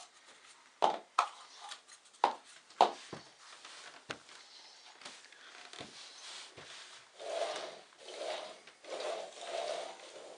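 Small upturned cups set down on a wooden floor with a few sharp clacks, then slid across the floorboards as they are shuffled, a rubbing swish about once a second.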